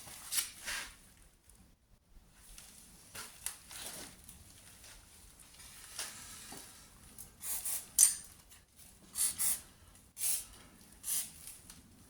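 Scattered light clicks, taps and metallic clinks from hands handling parts and tools on a car's rear subframe, in irregular bursts that grow busier in the second half.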